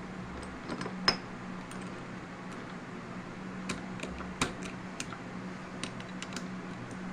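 Manrod MR 301 lathe running with a steady low hum, with scattered light metallic clicks and clinks over it: a sharp one about a second in and a cluster between about four and six and a half seconds.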